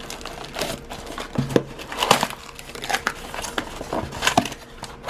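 Shipping package being torn and pried open by hand: irregular crinkling, crackling and tearing of the packaging, with a few sharper clicks.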